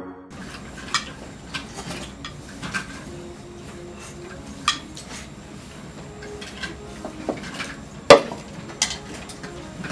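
Ceramic bowls and spoons clinking and knocking on a table in scattered light clicks. About eight seconds in comes one loud clunk as an empty ceramic bowl is set down on top of another.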